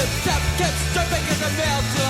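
Punk rock song playing, with loud drums, bass and guitar under a sung vocal line.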